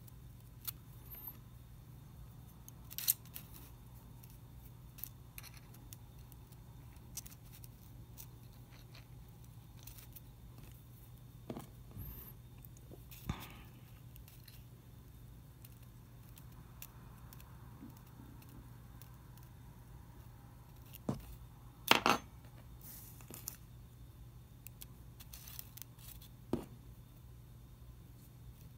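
Scattered small clicks and taps of metal forceps and insect pins being handled over a foam pinning board, the loudest about three seconds in and a sharper cluster about twenty-two seconds in, over a faint steady low hum.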